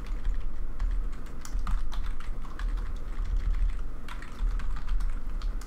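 Keys being typed on a computer keyboard: a few slow, irregular keystroke clicks over a low background hum.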